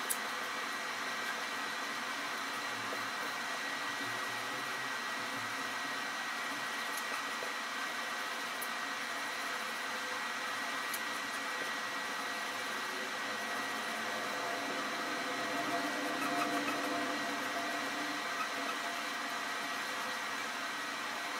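Steady background whir and hiss with a thin, high, steady whine, like a small fan or motor running throughout.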